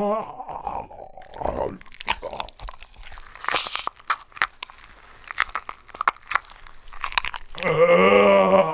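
2011 Spirit Halloween Flesh Eating Zombie animatronic playing its soundtrack: a stretch of crunching and chewing sounds, then a low zombie groan beginning near the end.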